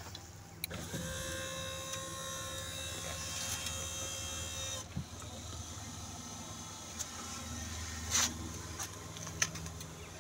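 Electric motor of a Fadiel powered swivel seat base running steadily as it turns a car's front seat toward the door. The motor starts with a click about a second in, changes note with another click about five seconds in, and a few short clicks sound later on.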